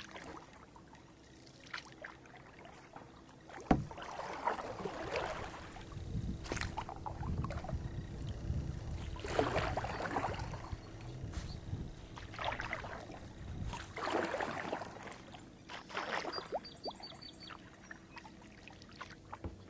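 Kayak paddle strokes dipping and splashing in the water, a swell of splashing every two to three seconds. A single sharp knock comes about four seconds in.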